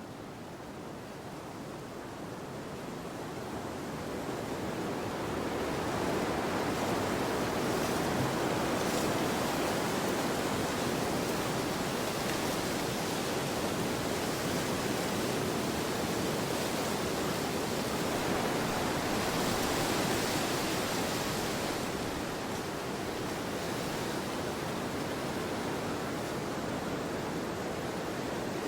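Wind blowing in a steady, even rush, swelling over the first few seconds and easing slightly later on.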